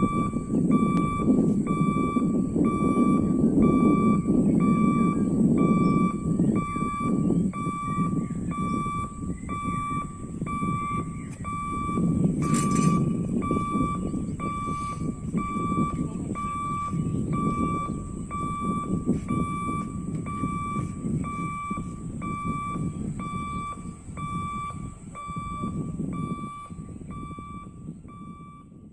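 A regular electronic beep, a single tone pulsing on and off about once a second, over a steady high-pitched insect-like hiss and a low rumbling noise that swells and fades.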